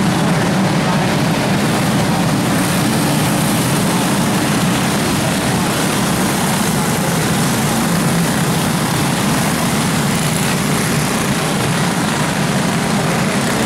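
A pack of racing go-karts' small engines running together, a steady dense drone with no letup.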